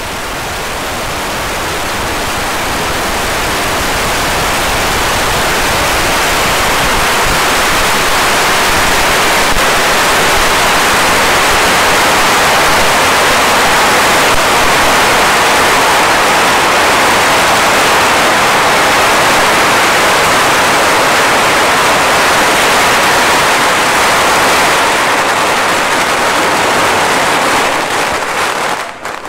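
Red hand flares burning with a loud, steady hiss that builds over the first few seconds and cuts off near the end.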